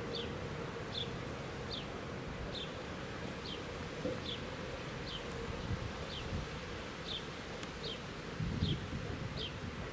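Quiet outdoor summer ambience: a steady insect-like buzz with a short, high, falling chirp repeating about once every 0.8 seconds.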